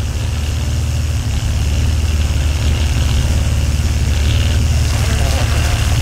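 A loud, steady low rumble, growing a little louder over the first two seconds.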